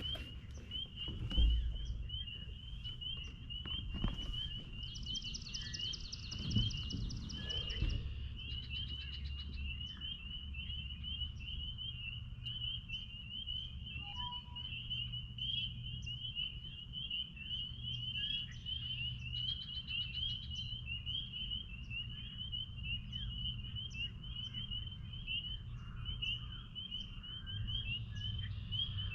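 Spring peepers in full chorus: many high, short peeps overlapping into a continuous, shimmering band. A higher buzzing trill joins for a few seconds near the start, over a low rumble.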